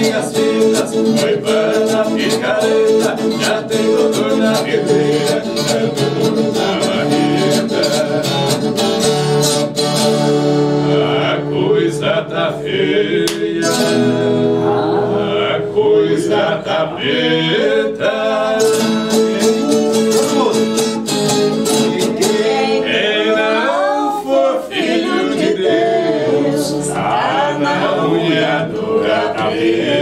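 Acoustic guitar played live, strummed and picked, with a man singing along from about ten seconds in.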